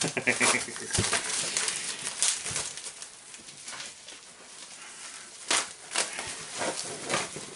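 Rustling and crinkling of packing material as hands rummage through a cardboard box, with a couple of sharper knocks as items are moved.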